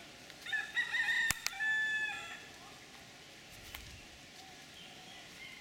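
A wild rooster (feral Hawaiian junglefowl) crowing once, a call of about two seconds starting about half a second in, with two sharp clicks partway through it.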